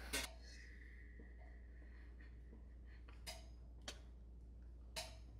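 Quiet room tone with a steady low hum, broken by a few faint, brief clicks.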